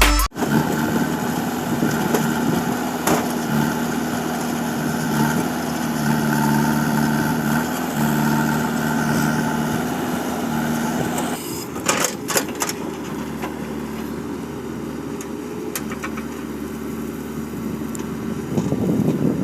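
JCB 3DX backhoe loader's diesel engine running under load with a steady note. About 11 seconds in, the note changes and a few metallic clanks sound; near the end the engine rises again.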